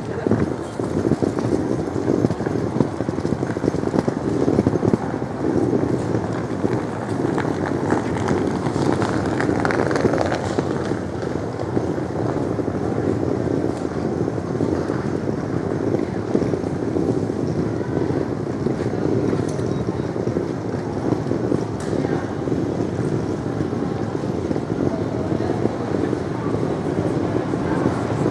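Busy pedestrian-street ambience: a crowd of passersby talking and walking, a steady mix of many voices and footsteps with no single sound standing out.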